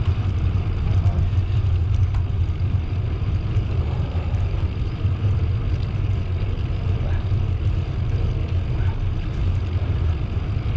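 Steady low rumble of a bicycle being ridden along a path: air rushing over the camera's microphone and the tyres rolling, with a few faint ticks.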